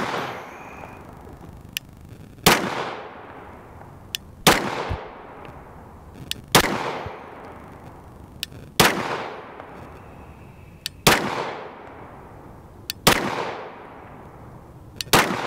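Slow, deliberate 9mm pistol shots from a Glock 34 Gen 4, about eight of them, one every two seconds or so, each followed by a short echo across the range.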